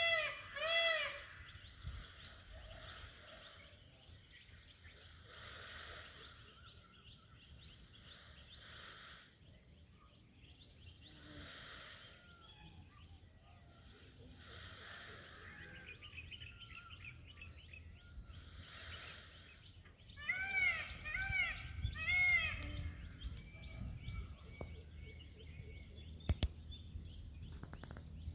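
Peacock calling in a quick series of short, arched, nasal honks, a couple right at the start and a run of about five some 20 seconds in, over steady outdoor background noise.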